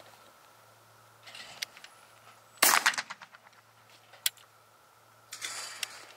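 A single shotgun shot about two and a half seconds in, dying away over about half a second. Fainter clicks and rustling come before and after it.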